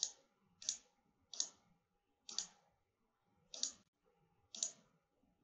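A computer mouse button clicking six times at uneven gaps of about a second, each click placing a control point on a curve in 3D modelling software.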